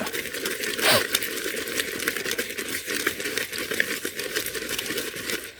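Soaked urad dal being ground by hand: a continuous gritty crackle of many small scraping clicks.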